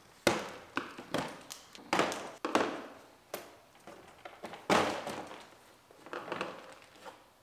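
Plastic clips of a car's front bumper lower cover unsnapping as the cover is pulled off. It makes a run of irregular snaps and knocks, with the plastic parts knocking together.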